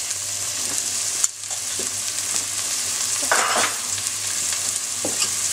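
Sliced onions frying in vegetable oil in a stainless steel pan over medium heat, a steady sizzle as they soften. A sharp click about a second in and a brief scrape around three seconds in.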